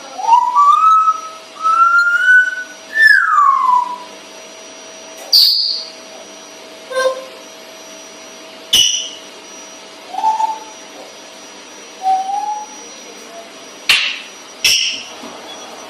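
Pet parrot whistling: a run of rising whistled notes in the first four seconds, ending in one falling whistle. Then come several short sharp calls and two brief whistles.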